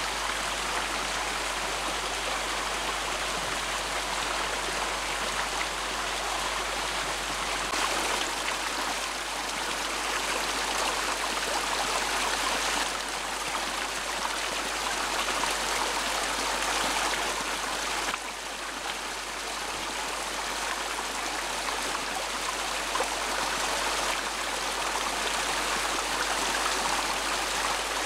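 Water spouting from a bamboo pipe and splashing onto the rocks of a shallow stream, a steady rush of running water.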